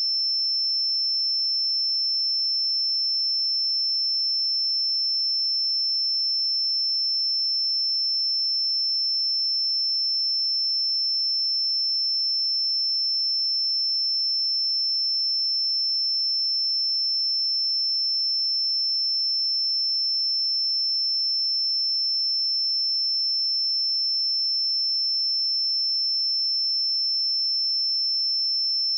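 A pure 5332 Hz sine-wave test tone: one steady, unchanging high-pitched note.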